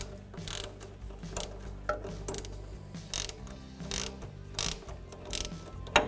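Hand ratchet with a 15 mm socket clicking on its back-strokes while running down the nut on a sway bar link, about two strokes a second.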